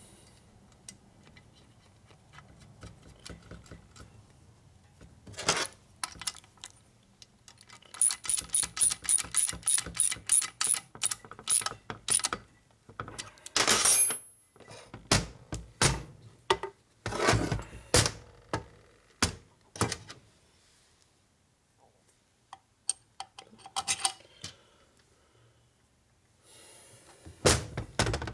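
Ratchet wrench clicking quickly, about five clicks a second, for several seconds, then scattered metal clicks and knocks. The mechanic is running down the crankcase nuts on a Harley flathead's case halves, snugging them but not yet torquing them.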